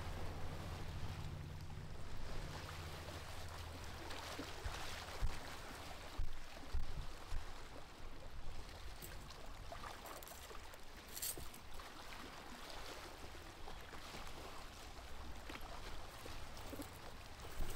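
Quiet outdoor ambience with a soft even hiss. A low steady hum fades out over the first few seconds. Light scattered rustles and clicks come from kits scrambling over dry needles and leaves at the den entrance.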